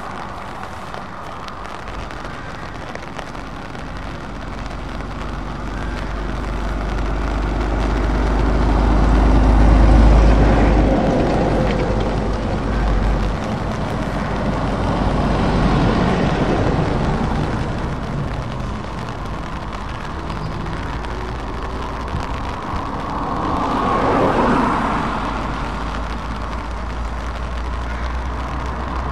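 Lorries and cars passing one after another on a wet road: engine rumble and tyre hiss swell as each vehicle goes by, loudest about ten seconds in, with further passes around sixteen and twenty-four seconds.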